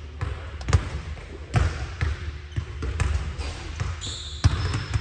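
Basketball bouncing on a gym floor, irregular thuds a second or less apart over a low rumble, with a few high squeaks near the end.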